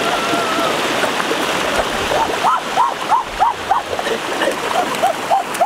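Steady rush of a rocky forest stream. About halfway in, a repeated chirping call joins it, short rising-and-falling notes about three a second.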